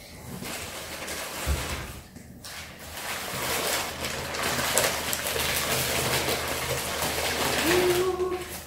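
Newspaper wrapping crinkling and rustling as an item is unwrapped by hand.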